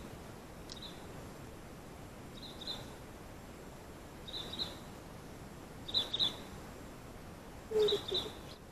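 A bird calling over and over, a short high double note about every two seconds, five times. A lower, louder sound comes with the last call near the end.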